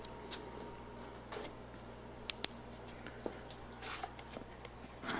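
Faint handling noises: a few sharp clicks and light rustling over a low steady hum, with a louder rustle near the end.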